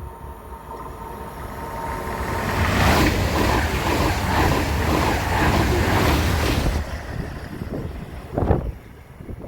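A train passing close by at speed. Its rushing noise builds over about two seconds, stays loud for about four, then drops away, with two short bursts near the end.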